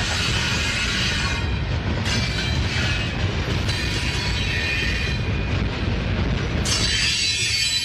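Covered hopper cars of a freight train rolling past: a steady low rumble of steel wheels on rail, with high squealing tones from the wheels that shift in pitch and grow brighter and louder near the end.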